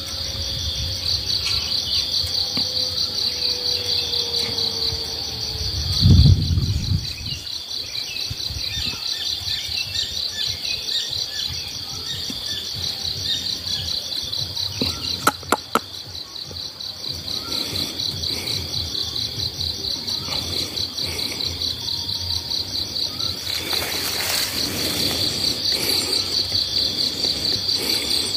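A steady, pulsing, high-pitched chorus of insects chirping. A dull low thump stands out about six seconds in, and three quick sharp clicks come just past halfway.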